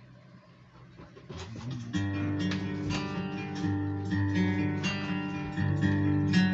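Acoustic guitar strumming chords as a slow song's intro, starting about a second and a half in after a near-quiet moment.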